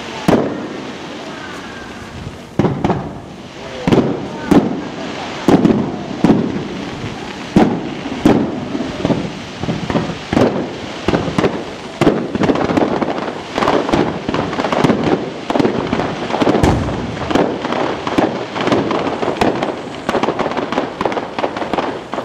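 Aerial fireworks display: shells bursting with sharp bangs, one every second or so at first, then crowding into a rapid run of bangs and crackles in the second half.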